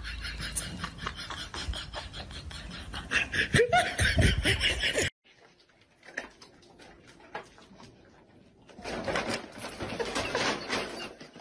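People laughing in quick, pulsing bursts, with a short squeal just before the laughter cuts off abruptly about five seconds in. After a quiet stretch, laughing starts again near the end.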